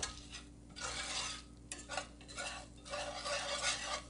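Wire whisk scraping and stirring through diced vegetables and sprinkled flour in a cast-iron skillet, in quick repeated strokes about two or three a second. The flour is being whisked into the fat and vegetables to cook out its raw taste and thicken the filling.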